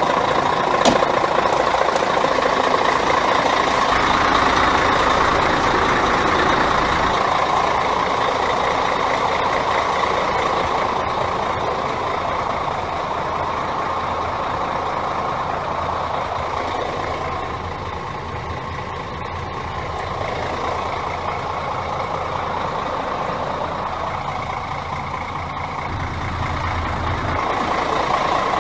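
Mercedes-Benz Axor 1840 truck's diesel engine idling steadily, a little quieter in the middle and louder again near the end.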